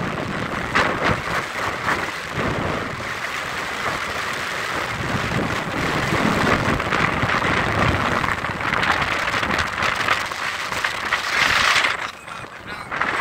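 Wind rushing over the microphone of a phone carried in an open-backed jeep, mixed with the vehicle's engine and road noise. The noise is steady and drops briefly near the end.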